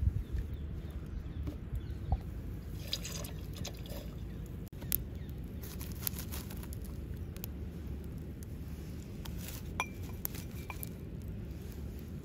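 Small clay cups being set down among the embers of a wood fire, giving a few light clicks and knocks over a steady low rumble.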